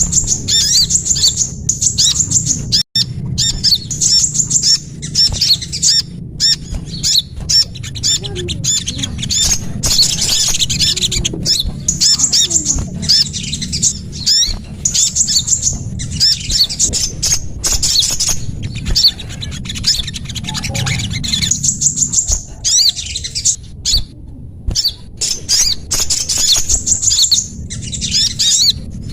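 Small songbirds chirping and twittering without pause, the calls of a bird-lure (pikat) recording: quick runs of high, sharp notes broken by brief gaps, over a low steady hum.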